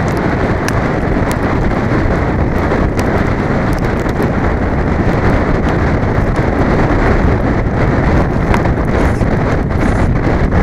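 Wind buffeting a helmet-mounted camera's microphone on a galloping racehorse, a loud, steady rush with a few faint clicks scattered through it.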